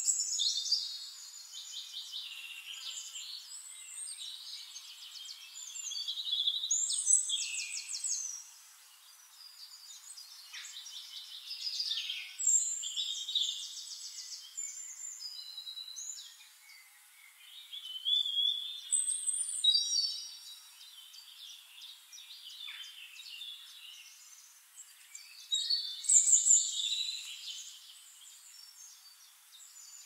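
Songbirds singing: loud phrases of fast, high trills and chirps every five to six seconds, with softer chirping in between.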